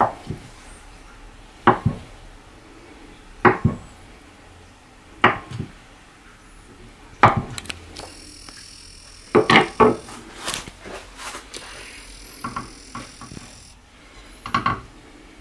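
Kitchen knife slicing through a block of firm tofu and knocking on a wooden cutting board: a sharp tap about every two seconds, then several quicker taps.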